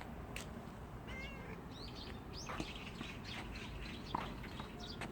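Stray cat meowing: a few short meows over a steady low background hum.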